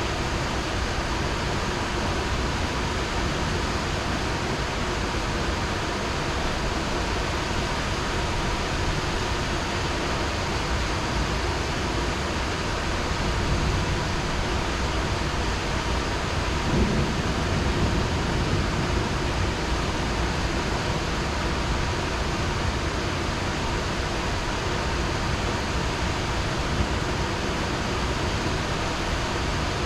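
Heavy rain falling in a steady, even hiss, with a brief low rumble about two-thirds of the way through.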